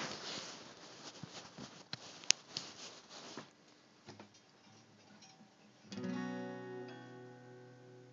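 Rustling and clicking handling noise for the first few seconds, then about six seconds in a single strummed chord on a Fender guitar rings out and slowly fades.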